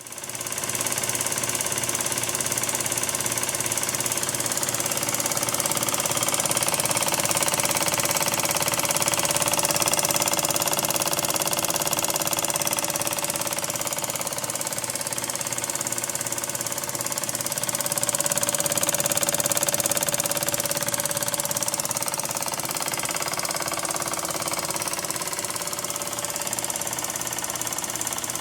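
Vintage 1930s Walker-Turner Driver Line scroll saw switched on and running steadily, its motor and reciprocating blade drive making a fast, even mechanical chatter.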